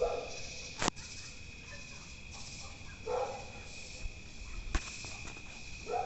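Night insect chorus: crickets hold a steady high-pitched trill, with a higher buzzing that comes and goes above it. Two sharp clicks, about a second in and just before five seconds, and brief faint lower sounds near the start and about three seconds in.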